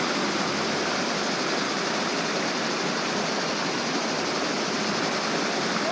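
Creek water rushing steadily over rocks in small cascades.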